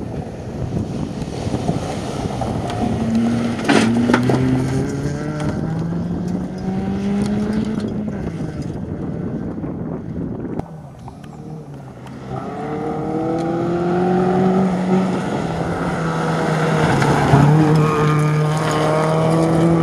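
Ford Focus rally cars driven flat out on a gravel stage: the engine revs up through the gears, its pitch climbing and then dropping at each shift, over the rush of gravel under the tyres. A sharp crack comes about four seconds in. After a brief dip about halfway, a second car pulls hard through its gears.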